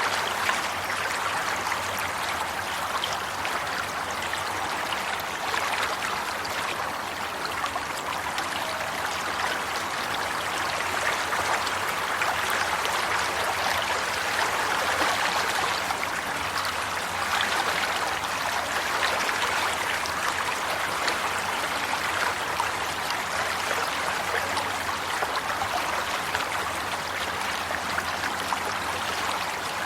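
Running water flowing and trickling steadily, a continuous burble of small splashes like a stream.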